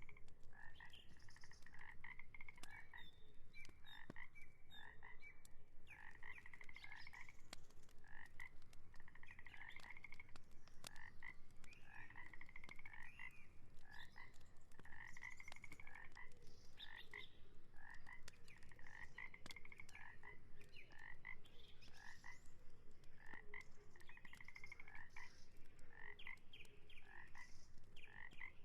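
Frogs calling: a chorus of short, rapidly pulsed croaking trills, one after another at roughly one call a second, with some overlapping.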